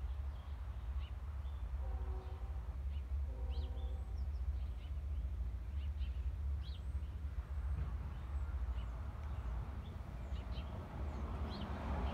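Small birds chirping at scattered intervals over a steady low rumble, with two short, lower-pitched calls about two and three and a half seconds in.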